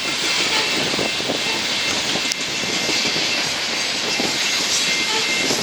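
BNSF coal train's hopper cars rushing past at speed, a dense steady roar of steel wheels on rail with scattered clicks and a faint high squeal, likely from brake shoes dragging on the wheels. Wind buffets the microphone.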